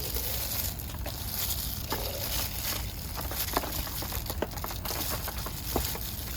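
Jeon frying in oil in a pan: a steady sizzling hiss dotted with small crackles and pops.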